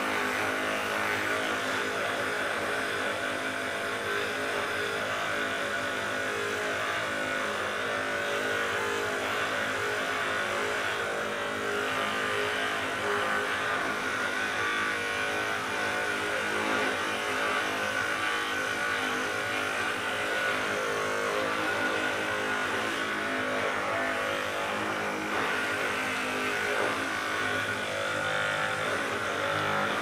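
Hypervolt percussion massage gun running steadily, a continuous motor hum with a high whine, its head pressed against the muscles of the upper back.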